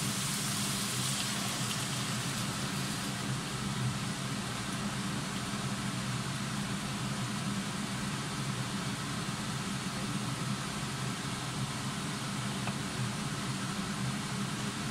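Steady low hum with an even rushing hiss from the stove while a pan of freshly added broth heats. A brighter sizzle fades over the first few seconds.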